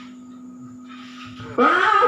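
A steady low hum with faint background noise. About one and a half seconds in, a man's voice suddenly comes back loud, starting a long melodic line of Quran recitation that slides upward in pitch.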